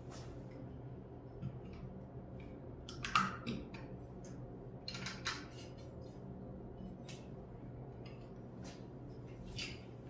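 Scattered light clicks and knocks of a BGA reballing jig being handled and set down on a silicone work mat, the loudest about three seconds in, over a low steady hum.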